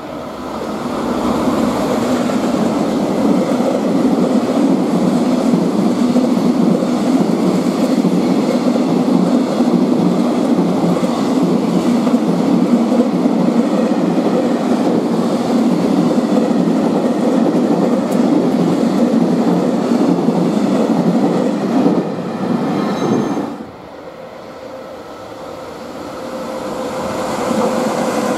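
Electric-hauled container freight train passing at speed, a long run of wagons rushing and rattling over the rail joints. About 23 seconds in the sound cuts off abruptly, and a second freight train led by an EF66 electric locomotive is heard approaching, growing steadily louder near the end.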